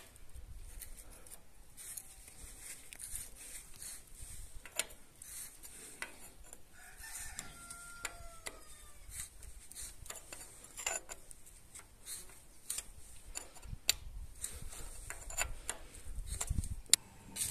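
Irregular metal clicks and scrapes of a wrench tightening the nut on a gas pipe's main valve. A rooster crows once about seven seconds in.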